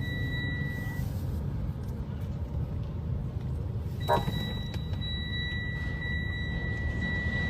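A steady low rumble with a continuous high-pitched beep tone over it. The tone sounds for about the first second, stops, then comes back about four seconds in and holds.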